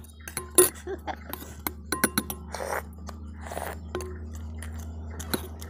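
Chewing and mouth noises of people eating fried puris with curry, with short clicks of a spoon against steel bowls, over a steady low hum.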